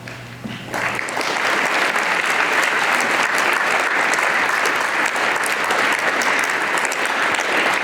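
An audience clapping. The applause breaks out about a second in and goes on steadily as many quick overlapping claps.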